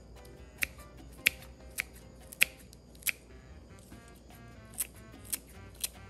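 Background music with pitched notes and sharp clicks, mostly about half a second apart, with a gap in the clicks around the middle.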